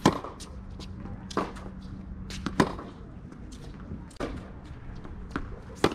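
Tennis rally on a hard court: rackets striking the ball in sharp pops, the three loudest about three seconds apart, with fainter pops of the ball bouncing and being hit at the far end between them.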